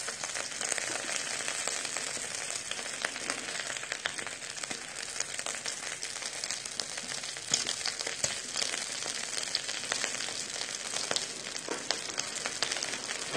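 Slices of wild boar sizzling in their own rendered fat on a hot round griddle pan: a steady crackling hiss with many small pops of spitting fat.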